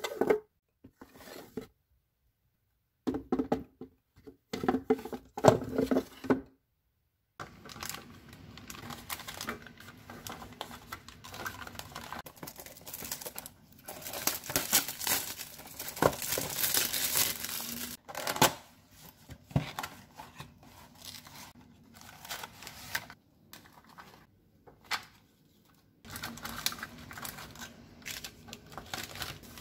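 Paper packaging tearing and drink-mix and tea-stick packets crinkling as they are handled and dropped into clear acrylic drawers, with the loudest, longest tearing in the middle. Hard clacks of the plastic drawers being pulled out come in the first few seconds.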